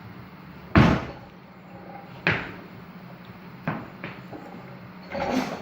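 A heavy thud of a barbell on the lifting platform, then two lighter knocks and a short clatter of metal and plates in the weightlifting gym.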